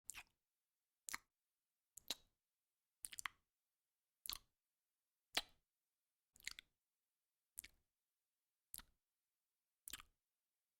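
Lip smacks: about ten short, faint smacks at roughly one-second intervals, a few of them in quick pairs.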